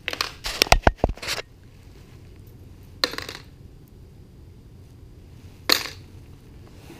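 Copper pipe jigs and metal hooks clinking and clattering as they are handled in a plastic tackle box: a quick run of clinks in the first second and a half, then two single clinks about three and six seconds in.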